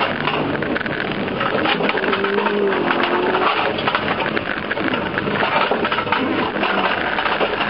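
Inside the cabin of a car driven hard on a snowy slalom course: continuous rattling and clattering of loose things in the car, over the running engine.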